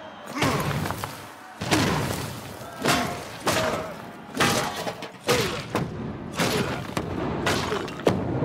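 Film sound effects of heavy body impacts: about ten hard thuds in quick succession as a giant slams a body again and again into a rubble-strewn stone arena floor. The sharpest crack comes near the end.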